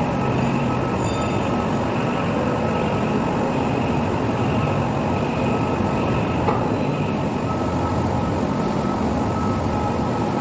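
Heavy industrial machinery running steadily: a dense low rumble with a constant high whine on top.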